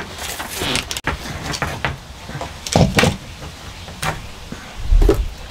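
Things being handled and set down: a scatter of light knocks and rustles, with heavier thumps about three seconds in and again near the end.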